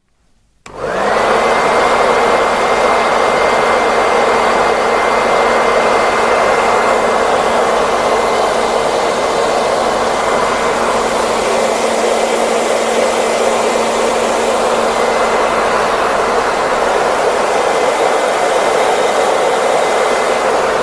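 Hair dryer switched on about half a second in, its motor whine gliding briefly up to a steady pitch. It then runs steadily with a loud rush of blown air under a thin high whine.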